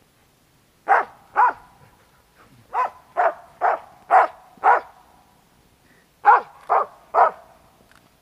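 A hunting laika barks up at a squirrel in a tree. There are ten sharp barks about half a second apart, in three bursts of two, five and three, with short pauses between them.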